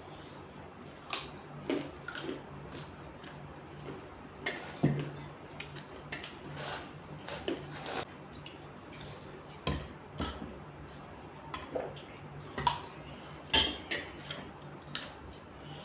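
Fingers scraping and tapping on stainless steel plates as rice and curry are mixed and scooped up by hand, with irregular clinks of steel dishes and a ladle, together with chewing. The loudest clinks come around two-thirds of the way through and near the end, over a faint low steady hum.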